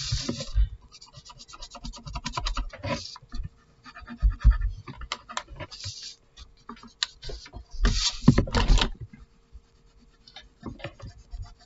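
Pencil scratching on paper in quick shading strokes that come in irregular spells, heaviest about three seconds in and again around eight seconds, with a few low bumps of the hand and paper.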